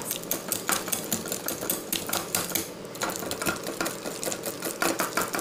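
Wire balloon whisk beating butter and sugar by hand in a ceramic bowl: rapid, rhythmic clicking and scraping as the wires strike the bowl, creaming the butter for butter icing.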